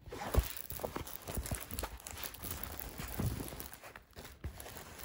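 Rolled diamond-painting canvas under its plastic cover film being handled: irregular crinkling and rustling with soft knocks, the loudest about half a second in.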